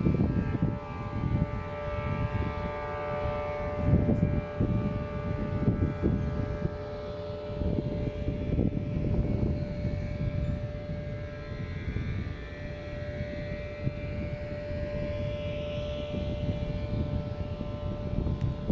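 Steady engine or machine drone with a constant hum, over uneven low rumbling noise.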